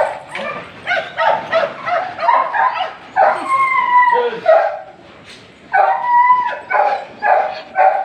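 Alaskan malamute vocalizing in a quick run of short yips and whines, with two longer drawn-out whining calls, one about three seconds in and another near six seconds.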